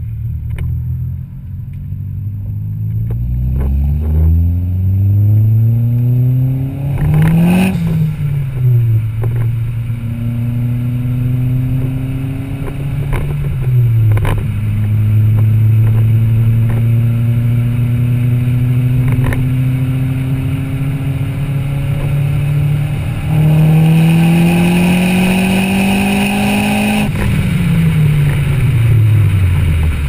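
Peugeot 207 RC's 1.6 turbocharged four-cylinder running through a Milltek turbo-back exhaust with no resonator while driving. The note climbs with the revs and drops quickly twice at gear changes, then holds steady. It rises again and falls away near the end as the car slows.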